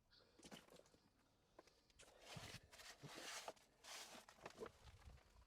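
Near silence with a few faint, short scuffs and rustles.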